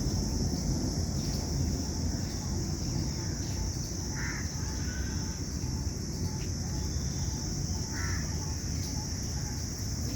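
Two short bird calls, one about four seconds in and one about eight seconds in, over a steady high-pitched hiss and a constant low rumble.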